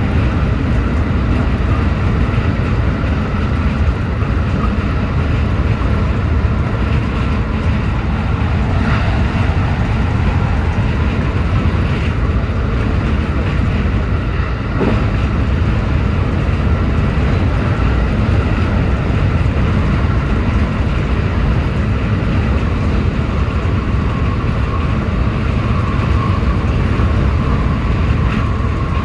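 Running noise of a JR West 223-series electric multiple unit at speed, heard from the cab: a loud, steady rumble with a thin steady whine over it.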